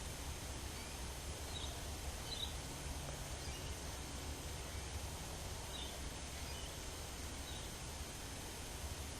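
A few short, faint bird chirps, scattered a second or more apart, over a steady low background rumble.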